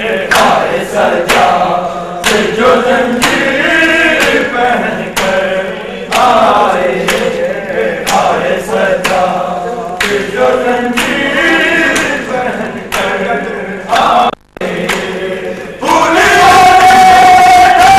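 A group of men chanting a nauha, a Muharram lament, in chorus. Hand slaps on bare chests (matam) keep time about once a second. The sound drops out briefly near the end, then the chant comes back louder on a held line.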